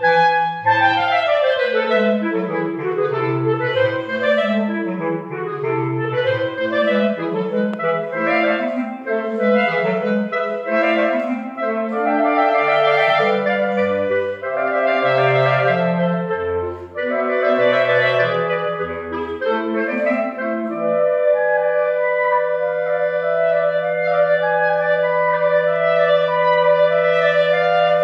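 A clarinet quartet of three clarinets and a bass clarinet playing in interwoven parts. For most of the time the lines move busily. Late on, the bass clarinet and middle voices hold long steady notes under a moving top line.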